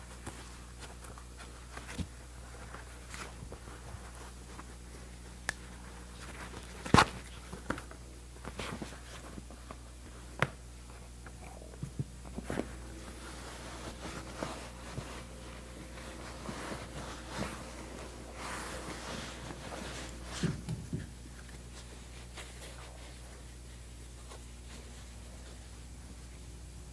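Leather upholstery cover rustling and rubbing as it is pulled and smoothed over a button-tufted chair back, with scattered light knocks and clicks, one sharper click about seven seconds in, over a steady low hum.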